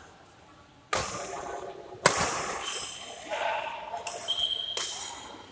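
Badminton rackets striking the shuttlecock in a doubles rally: four sharp hits, the second, about two seconds in, the loudest. A high shoe squeak on the court floor comes near the end.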